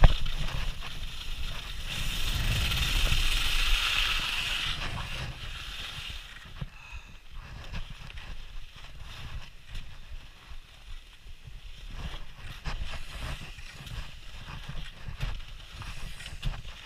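Skis hissing and scraping over snow, swelling over the first few seconds and then fading as the run slows, with low wind rumble on the microphone throughout. A brief knock comes at the very start.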